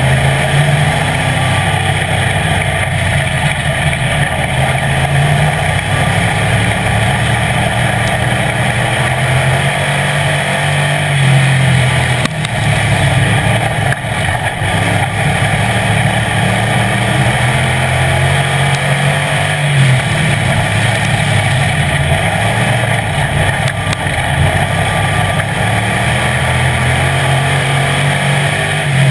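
Street stock race car's engine heard from inside the cockpit at racing speed, its pitch climbing and falling again and again as the throttle is opened and lifted, over a steady roar of wind and tyre noise.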